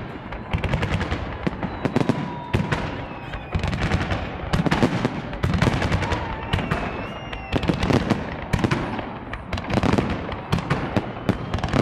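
Festive fireworks display: dense crackling and many overlapping bangs of bursting shells, swelling in waves every second or two.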